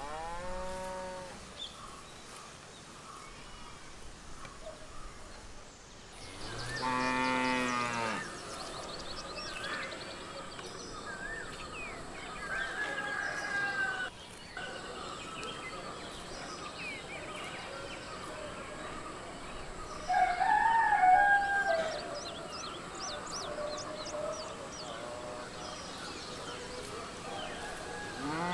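Cattle mooing over birdsong: one long, low moo of about two seconds some six seconds in, with the ends of other moos at the start and end. About twenty seconds in comes a louder, higher-pitched animal call.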